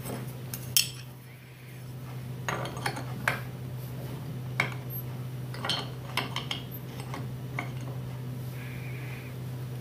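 Flat steel router wrenches clinking against the router's collet nut and each other as the collet is tightened on a bit: a run of sharp metallic clicks and taps at uneven spacing.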